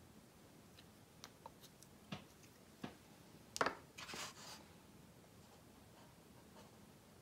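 Small plastic clicks and taps from handling a strip of acrylic paint pots while opening the black pot, with one louder sharp click about three and a half seconds in and a short scratchy rustle just after it.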